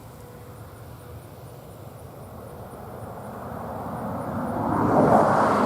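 An airplane flying over, its engine noise growing steadily louder through the second half and loudest near the end, on the approach path to a nearby runway.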